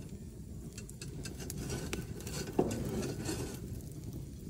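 Wood fire burning with steady crackling over a low rumble, and one dull knock about halfway through.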